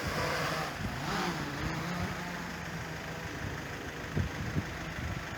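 Steady low hum of a vehicle engine idling, with wind noise on the microphone.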